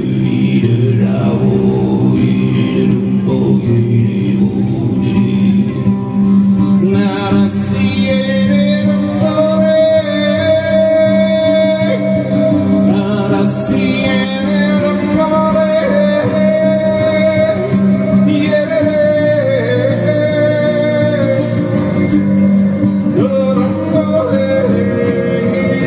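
A man's overtone singing with acoustic guitar: a steady low sung drone, and from about eight seconds in a single high overtone held clear above it, shifting pitch now and then.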